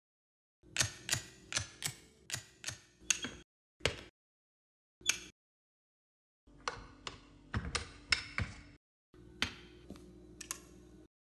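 Joints of a folding carpenter's ruler clicking as its sections swing open and lock, about twenty sharp clicks in quick irregular runs with a short pause near the middle.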